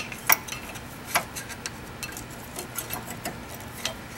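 Scattered light metallic clicks and taps of brake pads and caliper hardware being handled. The sharpest clicks come right at the start, about a third of a second in and just after a second.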